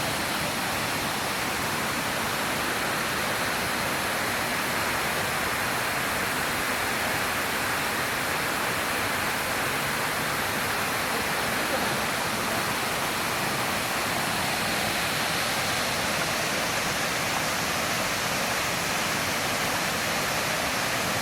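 Waterfall: water pouring and splashing in a steady, even rush with no change in level.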